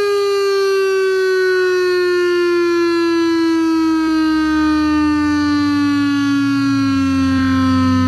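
Federal Signal STH-10 outdoor warning siren sounding during an attack-signal test: a loud, steady siren tone that falls slowly and smoothly in pitch. A low rumble joins underneath about halfway through.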